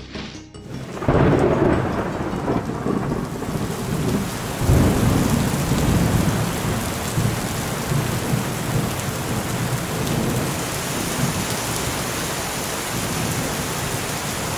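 Thunderstorm: thunder rumbling, breaking in suddenly about a second in and swelling again around five seconds, over steady rain.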